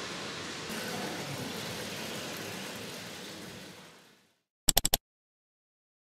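Steady hissing background noise fades out about four seconds in. Then comes a quick run of four sharp electronic pops, the loudest sound here: an editing sound effect for the channel's logo card.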